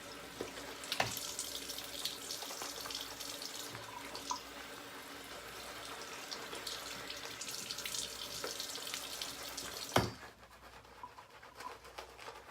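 Tap water running into a sink. There is a sharp knock about ten seconds in, after which the sound is quieter.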